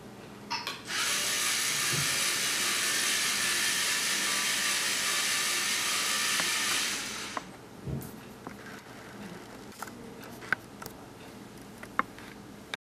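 LEGO Mindstorms NXT robot's two drive motors whirring steadily for about six seconds as it drives straight across the mat at power 50, starting just after a couple of clicks and stopping near seven seconds. A few faint clicks follow.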